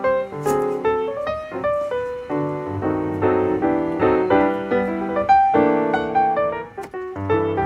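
Background piano music, a melody of quick notes over chords.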